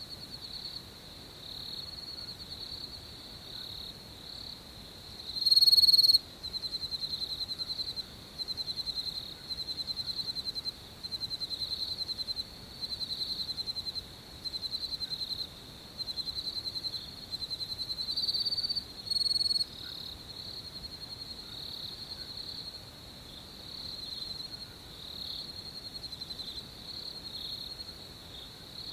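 Crickets chirping in chorus: a steady high trill with louder pulsed chirps about a second long, repeating roughly every second. One chirp about six seconds in is much louder than the rest.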